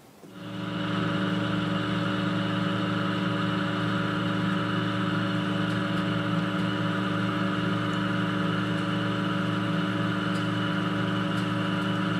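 Metal lathe running under load, taking a 2 mm-deep roughing cut on a 4140 steel bar: a steady hum and whine from the motor and gearing, with the cutting noise of the tool, coming up about half a second in and holding at an even level.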